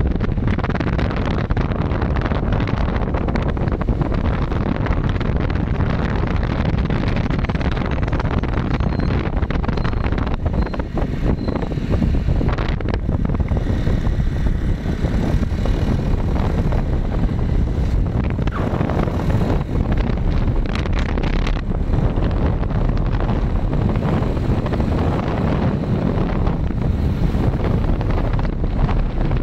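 Wind buffeting the microphone on a moving vehicle: a steady, unbroken rumble and rush with the vehicle's running underneath.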